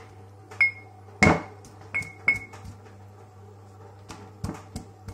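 Pestle bashing nuts in a heavy white mortar: sharp knocks, each with a short ringing ping, four strong strikes in the first two and a half seconds, then a few lighter taps near the end.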